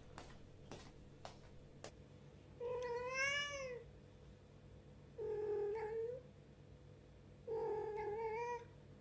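Domestic cat meowing loudly three times, each drawn-out call lasting about a second, with a few faint clicks before the first call.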